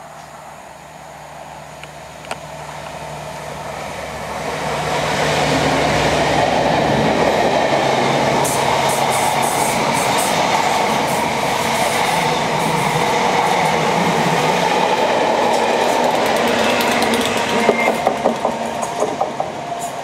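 A train hauled by a Class 67 diesel locomotive passing at speed. A low engine hum builds over the first few seconds, the noise of the train is loud for most of the time, and wheels clack over rail joints near the end as the coaches go by.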